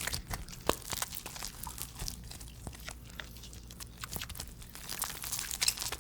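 Crunchy slime being squeezed and pressed by hand: a dense run of crisp crackles and pops that thickens and grows louder near the end.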